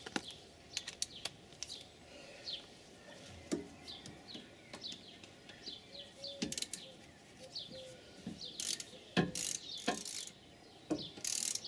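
Socket ratchet clicking in short bursts as the bottom bolt of a rear brake caliper is wound in and tightened, with birds chirping in the background.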